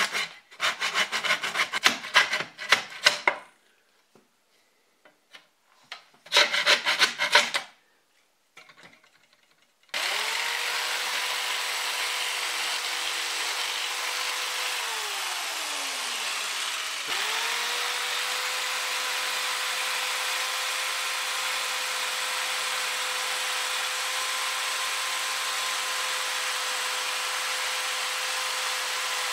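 Handsaw cutting into wooden shelf slats in two short runs of quick back-and-forth strokes. Then an electric jigsaw starts up and runs with a steady whine, winds down after about five seconds, starts again and keeps running.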